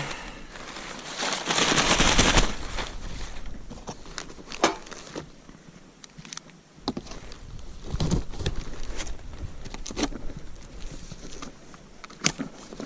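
Packaging and parts being handled: a loud rustle from about one to two and a half seconds in, then scattered light knocks and clicks.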